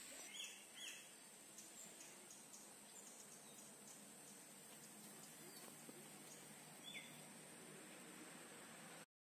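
Faint outdoor ambience: a steady high-pitched insect drone with a few short, falling bird chirps, two close together near the start and one about seven seconds in. It cuts off abruptly near the end.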